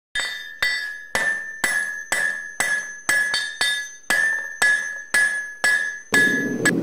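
Hammer blows on an anvil at a steady pace of about two a second, each ringing clearly and dying away before the next. A steady low rumble comes in near the end.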